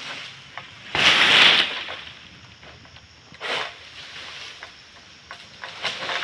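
Long-pole harvesting sickle cutting at the base of an oil palm frond, with the fronds rustling: short rasping bursts, the longest and loudest about a second in, two smaller ones later.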